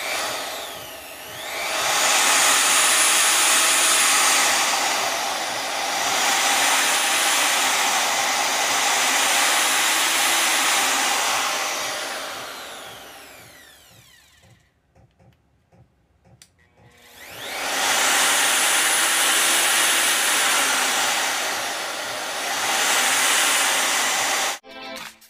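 Vevor 5120 plunge router switched on and run twice: its motor winds up to a steady high-speed whine, runs for several seconds, then spins down. After a few seconds' pause it starts up again.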